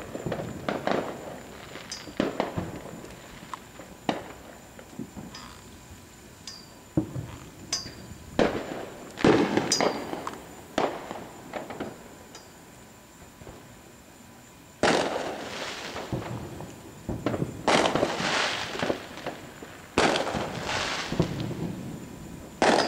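Fireworks going off: a string of sharp bangs and pops, then, from about eight seconds in, louder aerial shell bursts a few seconds apart, each trailing off in crackle.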